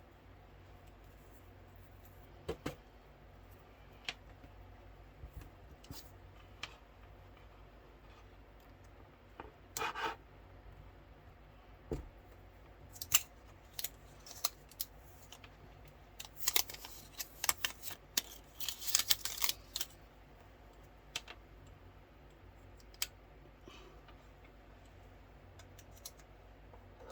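Packaging being handled and opened by hand: scattered light clicks and taps, a brief rustle about ten seconds in, and a rapid run of sharp crackling clicks past the middle.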